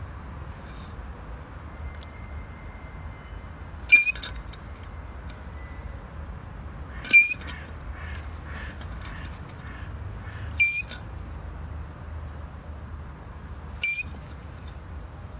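A vehicle's shock absorber squeaking: four short, high-pitched squeaks, each under half a second, about three seconds apart.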